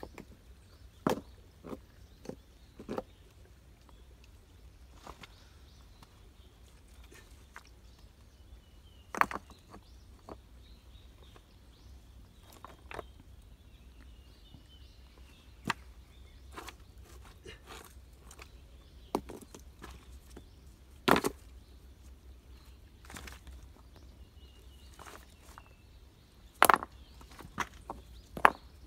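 Stones knocking and clacking against each other as they are lifted and set in place to make steps: about a dozen sharp knocks at irregular gaps, some bunched together and some several seconds apart.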